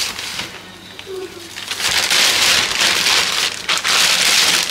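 Thin plastic carrier bag rustling and crinkling as a hand rummages through the potatoes inside it, much louder from about two seconds in.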